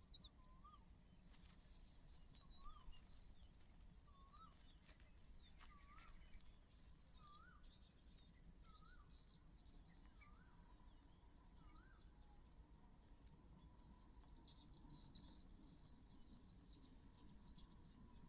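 Faint bird calls. One bird repeats a short whistled note that rises and falls, about once a second for the first twelve seconds, with a few faint clicks. Sharper high chirps follow near the end and are the loudest sounds.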